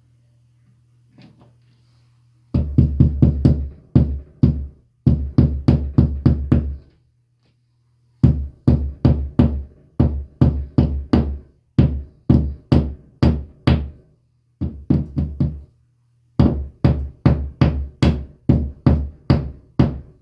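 Claw hammer tapping plastic wall anchors into drilled holes in the wall to seat them flush. The hammering is quick runs of sharp strikes, about five a second, with short pauses between runs, starting a couple of seconds in.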